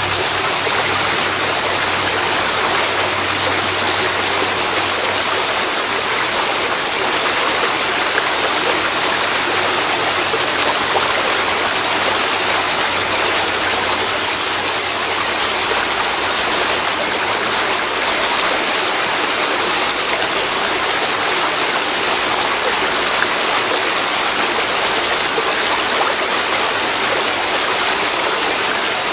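A waterfall falling into a river, its water rushing and splashing with a loud, steady roar.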